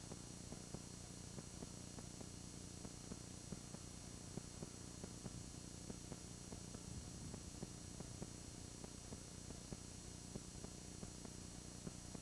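Faint steady hum and hiss with a fixed high whine and scattered small clicks: the background noise of an old home-video recording, with no distinct sound event.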